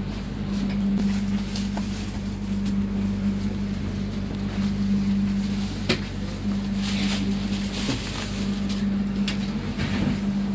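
Steady low hum inside a passenger train carriage, with rustling now and then and one sharp click a little past the middle.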